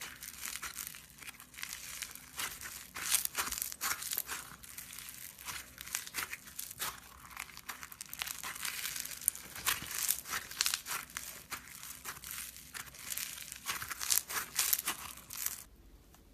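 Crunchy slime being squeezed and pressed by hand: a dense run of fine crackling and popping, which stops abruptly near the end.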